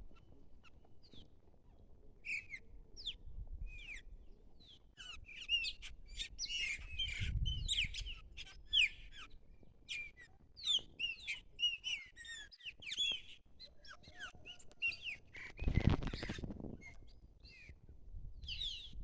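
A flock of chopi blackbirds calling in a noisy chorus of many overlapping short chirps and falling whistles. About three-quarters of the way through, a brief loud rush of noise, like a gust or a knock on the microphone, rises over the birds.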